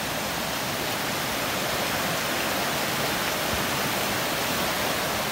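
River water rushing steadily over rocks, a constant even hiss.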